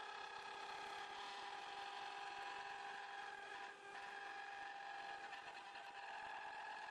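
High-speed spindle of a five-axis CNC router running with a steady whine of several tones over a hiss while its cutter machines the edge of a bent plywood chair shell; the sound dips briefly a little under four seconds in.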